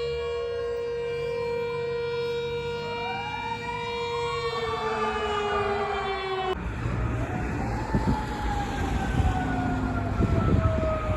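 Fire truck sirens: one siren holds a steady tone that sinks slowly while a second siren wails up and down over it. After a sudden cut about two-thirds of the way through, another fire truck's siren wails down and up again over engine and road rumble.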